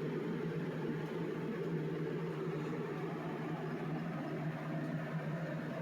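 Steady low hum with an even rush of noise under it, unchanging throughout, like a fan or other running machine in the room.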